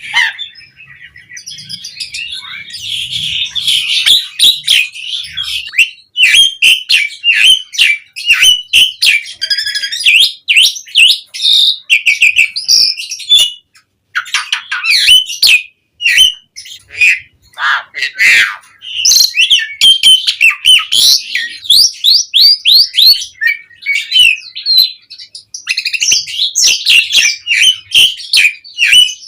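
Javan pied starling (jalak suren) singing a long, varied song of rapid chattering notes, whistled glides, sharp clicks and fast trills, broken by a couple of short pauses about halfway through.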